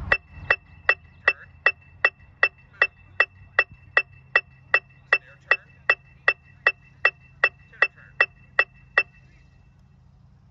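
Electronic metronome beeping through a portable PA speaker at a steady tempo, about two and a half beats a second, keeping time for a marching band's drill. It stops about nine seconds in.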